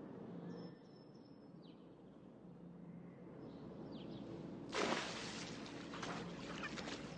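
A cat falls into a swimming pool about five seconds in: a short splash, then a few seconds of quieter water sloshing. Faint short bird chirps are heard now and then.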